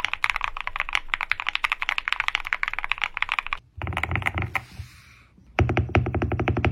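Fast typing on a mechanical keyboard: a rapid stream of key clacks that breaks off a little past the middle. After a short lull a second run of typing starts, louder and deeper.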